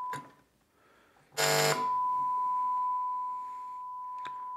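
Steady sine test tone from a function generator played through the repaired Quad 405-2 power amplifier into test speakers. It cuts out as the RCA input lead is pulled, then a short loud buzz sounds as the plug goes into the other input, about a second and a half in. The tone comes back clean and steady, a sign the repaired channel is working again.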